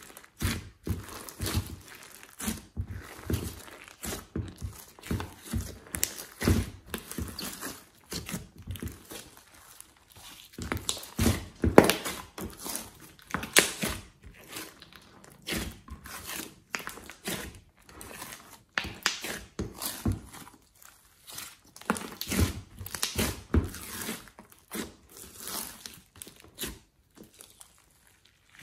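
Hands squishing, pressing and stretching glossy slime mixed with clay and floam beads: a continuous run of irregular wet squelches, pops and crackles, with a short quiet gap near the end.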